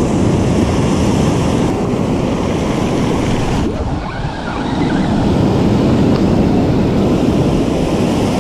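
Ocean surf breaking and rushing, with wind buffeting the microphone; the noise dips briefly about four seconds in.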